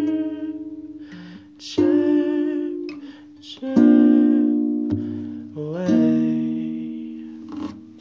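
Acoustic guitar chords strummed about every two seconds and left to ring, with wordless held sung notes over them, as the song closes. The last chord fades out near the end.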